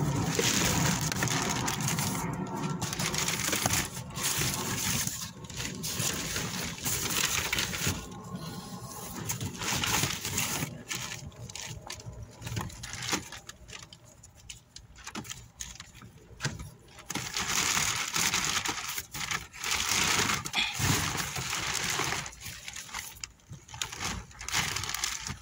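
Plastic carrier bags rustling and crinkling as they are handled and rummaged through, in irregular bursts with short pauses.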